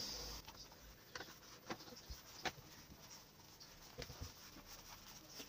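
Faint rustling and a few light taps of hands pressing and sliding over the cloth cover of an electric blanket, feeling for the heating wire inside.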